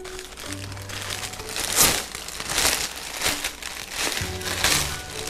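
Plastic poly mailer bag crinkling and rustling in repeated bursts as it is handled and pulled open, over background music with held notes.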